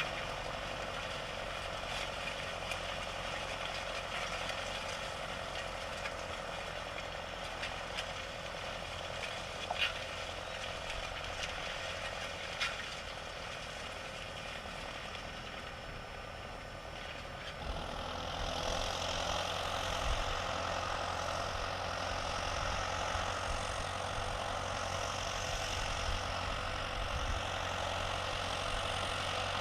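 Tractor engine running steadily, with a few sharp clicks in the first half. About eighteen seconds in the sound changes abruptly and grows louder.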